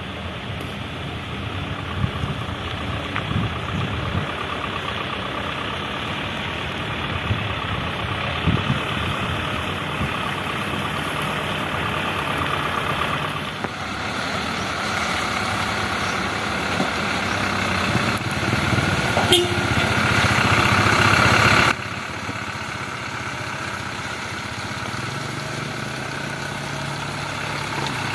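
Heavy construction machinery engines running, truck-like and steady. The sound changes abruptly twice, builds up just before the second change, and has a short sharp click shortly before that.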